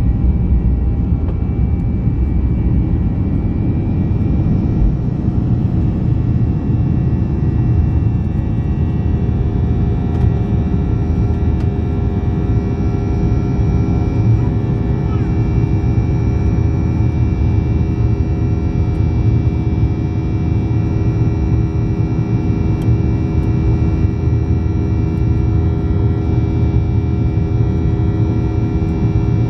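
CFM56-7B turbofans of a Boeing 737-800 at takeoff thrust, heard inside the cabin beside the engine: a loud, steady roar with a heavy low rumble through the end of the takeoff roll, liftoff and initial climb. Several steady held tones come through more clearly about nine seconds in.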